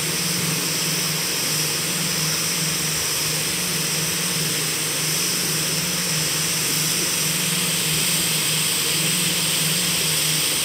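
Steady mechanical drone with a low hum and an even hiss, the sound of shrimp-pond aeration equipment running and churning the water.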